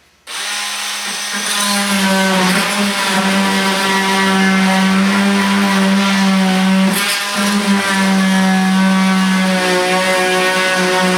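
An electric power tool running steadily with a pitched hum, cutting an access hole through the back wall of a travel trailer. Its sound dips briefly around two seconds in and again around seven seconds in.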